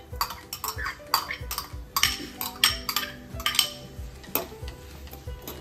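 Sliced onions tipped from a glass bowl into a pan with oil, a spoon scraping the bowl out and clinking against the glass and the pan in an irregular run of clicks and scrapes.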